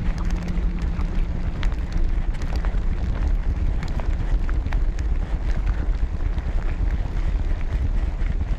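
Heavy wind noise on the microphone of a mountain biker's camera while riding, with mountain bike tyres on loose, dusty gravel and scattered short clicks and rattles from the stones and the bike.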